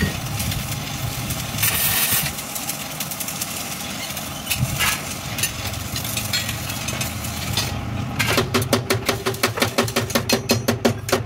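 Arc-welding crackle for the first two seconds, with a steady low engine-like hum underneath. From about eight seconds in comes a fast, even run of metal-on-metal taps, several a second: a chipping hammer knocking slag off fresh welds on a steel truck cab panel.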